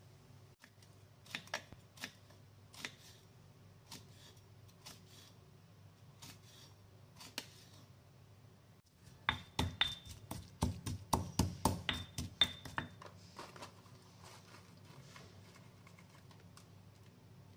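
Kitchen knife chopping on a wooden chopping board: scattered single taps at first, then a quick, even run of strikes, about four or five a second, for a few seconds in the middle, then light taps again.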